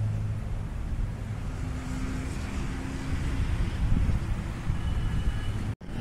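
JCB 3DX backhoe loader's diesel engine running with a steady low rumble. The sound cuts out briefly near the end.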